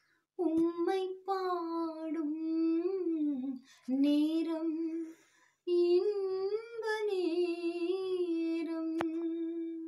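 A woman singing a Tamil Christian devotional song unaccompanied, in three phrases with short breaths between them, the last ending on a long held note.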